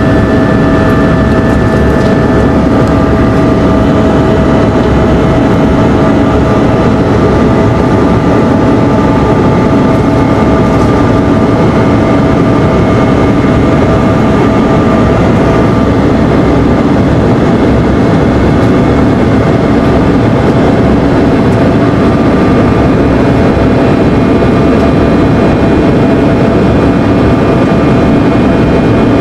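Cabin noise of a Bombardier CRJ-200 in its climb after take-off, heard from a window seat: a steady rush of airflow and its two rear-mounted General Electric CF34 turbofans, with a few faint steady whining tones through it. One higher tone stops about two and a half seconds in.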